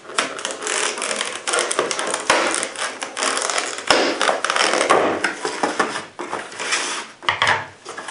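Packaging rustling, with irregular clicks and knocks, as a hard polymer holster is taken out of its box by hand.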